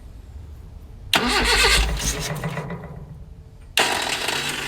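1982 Datsun wagon's carbureted four-cylinder engine cranked on the starter about a second in, catching briefly and then fading out as it fails to hold an idle; it is cranked again near the end.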